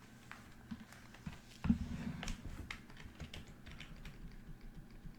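Computer keyboard typing: irregular key clicks, with one louder thump a little under two seconds in.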